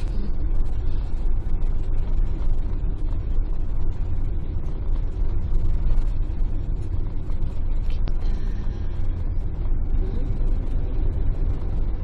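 Steady low rumble of engine and road noise inside a moving campervan's cab.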